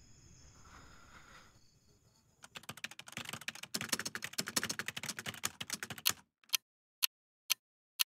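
Faint night insects chirring steadily, then, about two and a half seconds in, a rapid run of keyboard-typing clicks: a sound effect for on-screen text being typed out. From about six seconds in, single sharp clicks come evenly about twice a second.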